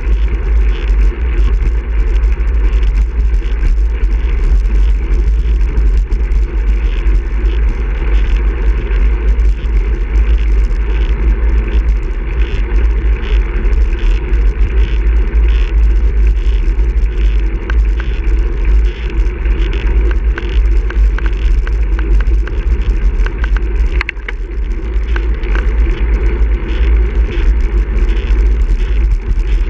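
Steady wind rush and buffeting on the microphone of a camera riding on a moving road bicycle, with the rumble of the tyres rolling on asphalt underneath.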